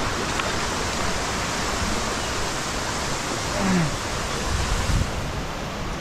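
Steady rush of a waterfall and the rocky stream below it.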